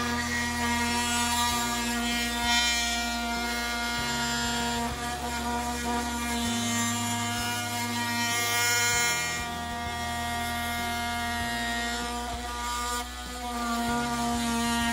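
Cordless oscillating multi-tool running with a steady, high buzz as its blade plunge-cuts into a wooden window jamb.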